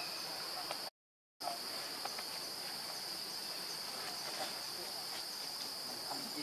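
Steady high-pitched drone of insects, with faint scattered ticks and rustles. The sound cuts out completely for about half a second about a second in.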